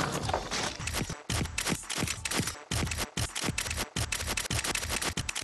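Cartoon camera shutter clicks and flash pops firing in rapid succession, several a second, getting denser near the end.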